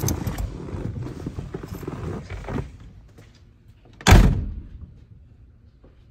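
A Volkswagen Beetle door shutting with one solid thunk about four seconds in. Before it there are a couple of seconds of irregular rustling and shifting noise in the cabin, which stop.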